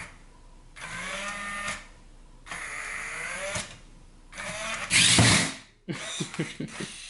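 WowWee CHiP robot dog's motors whirring in several separate bursts as it moves through its yoga pose. The loudest burst comes about five seconds in, and a run of quick clicks follows near the end.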